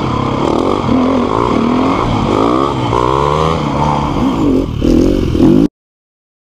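Dirt bike engines revving hard, their pitch rising and falling with throttle and gear changes as two bikes ride together. The sound cuts off abruptly to complete silence about two-thirds of the way through.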